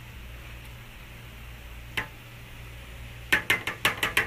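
A kitchen utensil clinking against a mixing bowl while adding Dijon mustard to a dressing: one click about two seconds in, then a quick run of clicks and taps near the end, over a low steady hum.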